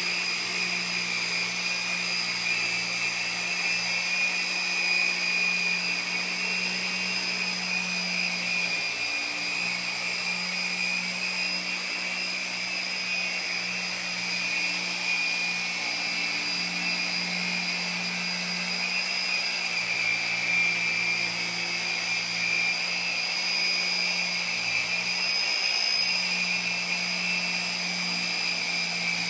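Dual-action orbital polisher with a medium foam pad running steadily against a boat hull while it works cutting compound into the oxidized surface. It makes a steady high whine over a low hum.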